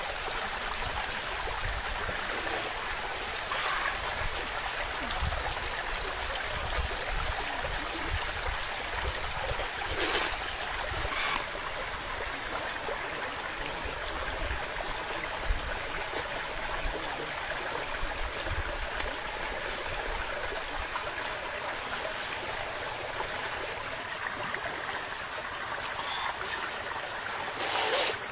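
Steady rushing of a nearby stream, with a few brief louder sounds over it, one about ten seconds in and another near the end.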